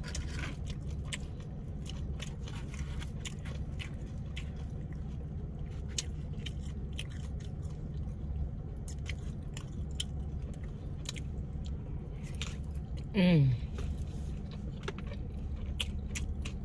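Close-miked chewing and biting of crunchy fried tortilla chips and bowl food, many small crunches and mouth clicks over a steady low hum. About 13 seconds in, a short "mm" hum that falls in pitch.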